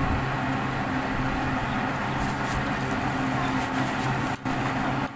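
A steady engine hum running under busy market background noise, with light crinkling of plastic bags being handled.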